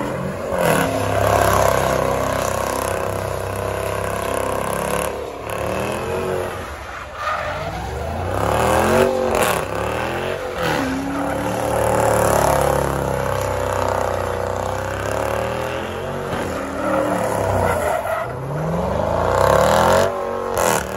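A car doing donuts in a burnout: the engine revs up and down over and over while the spinning rear tires squeal on the pavement.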